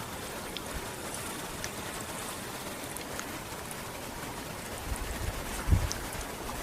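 Steady hiss of moving water, with a few faint ticks and some low bumps about five to six seconds in.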